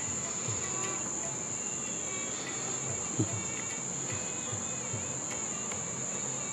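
A steady high-pitched trill, insect-like, holding one pitch without a break, over faint low thumps of movement.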